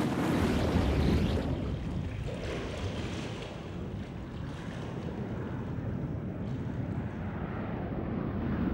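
Seawater churning at the surface, then after about a second and a half the sound becomes muffled: a steady low underwater rumble as the view goes below the surface.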